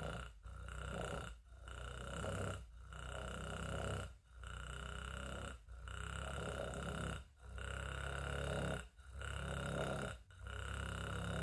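A person's low, snore-like grunting breaths, repeating about every second and a half.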